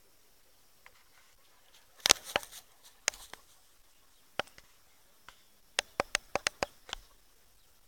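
A series of sharp clicks or taps: a cluster about two seconds in, a few single ones, then a quick run of about six near the end.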